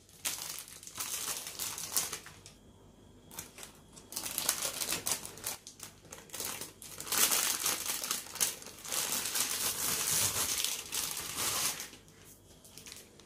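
Clear plastic cake wrapper crinkling by hand as a packaged loaf cake is unwrapped, in stretches of crackling with short pauses.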